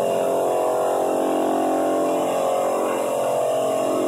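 Floor drum sander running steadily on a hardwood floor, with a Ridgid shop vacuum running alongside to pull the sanding dust through a cyclone separator in place of the sander's broken blower.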